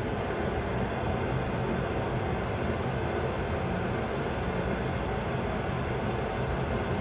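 Steady rushing airflow noise with a low hum in a Boeing 737 flight-simulator cockpit, gliding with both engines failed and the landing gear down.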